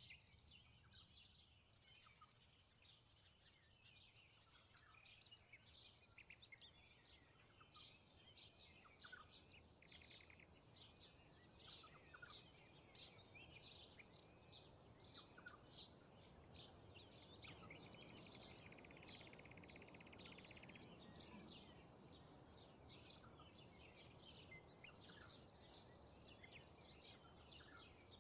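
Faint birds chirping in quick, repeated high calls throughout, with a short buzzy trill about two-thirds of the way in. A soft wind rush swells in the middle and eases off again.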